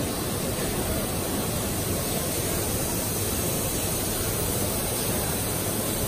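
Steady, even rushing noise of a running PE extrusion film lamination machine, with no separate knocks or clicks.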